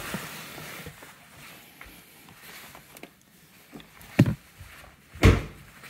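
A person climbing out of a car: rustling movement, then two dull thumps about a second apart, the second the loudest.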